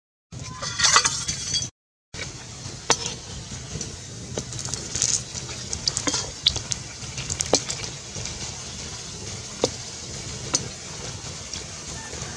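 Slices of meat frying in oil in a steel wok, a steady sizzle with sharp pops and crackles. A metal spatula scrapes and taps against the pan, loudest about a second in.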